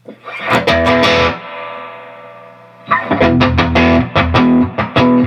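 Electric guitar played through a Dr. Z MAZ18 Junior tube amp head into a custom-built 1x12 cabinet, with a driven, distorted tube tone. A burst of strummed chords is left to ring out, then from about three seconds in come quick rhythmic chord strums.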